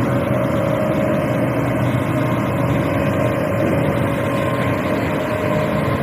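Diesel engine of a single-drum road roller (soil compactor) running steadily under load as the machine rolls, a heavy, even drone with a constant hum.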